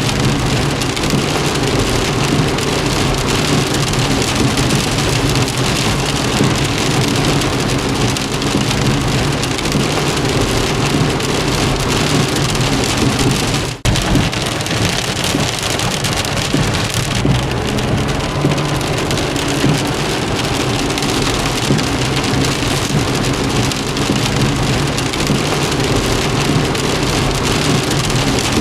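Heavy rain falling steadily on a car, a dense hiss with a steady low hum beneath it. The sound drops out for a moment about halfway through.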